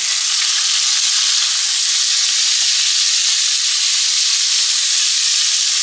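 Halved tomatoes sizzling loudly in hot bacon fat with onions in a frying pan. It is a steady frying hiss that sets in as they hit the pan and holds evenly.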